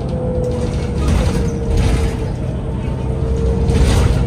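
Inside a New Flyer DE60LFR diesel-electric hybrid articulated bus under way: a low drivetrain and road rumble with a steady whine that slides slowly lower in pitch. Rattling from the bus interior swells about two seconds in and again near the end.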